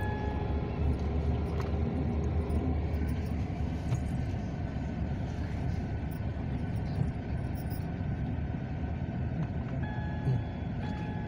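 Steady low rumble of a car's engine and tyres heard from inside the cabin while it drives along a paved road.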